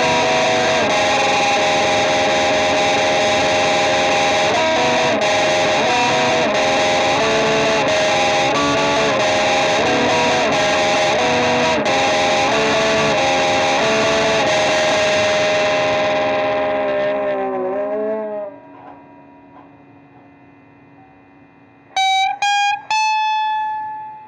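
Distorted electric guitar through effects playing held, droning chords that shift from note to note, then dying away about three-quarters of the way in. Near the end, a few sharp single notes ring out.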